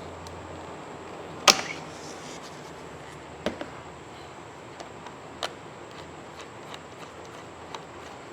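Hand tools and car parts knocking and clicking. A sharp knock comes about a second and a half in, a second one about two seconds later, then several lighter clicks, all over a steady hiss.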